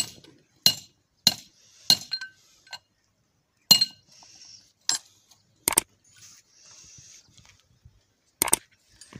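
Hand hammer striking a steel punch held against the crankshaft assembly of an 8 hp R180 diesel engine: a run of sharp, ringing metallic clinks about every half second to a second, then a pause of a couple of seconds and one last strike near the end.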